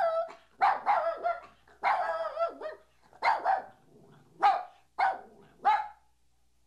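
A dog barking: about seven drawn-out, pitched barks, the first few longer and the last three short and sharp.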